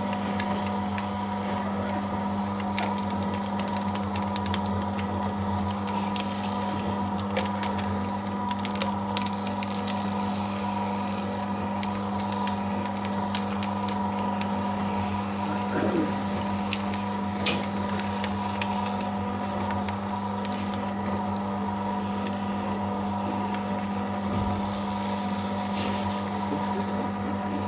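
Paper shredder motor running steadily with a constant hum while it feeds through a continuous strip of thermal-print ECG paper, with scattered faint ticks and a couple of brief clicks.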